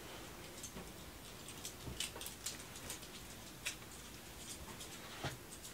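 Faint rustling of a heavy fleece blanket being shaken and pushed into its cover, with a few scattered soft clicks and taps.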